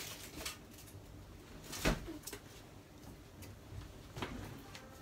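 A few light knocks and clatters of groceries and packages being handled on a kitchen counter, the loudest about two seconds in.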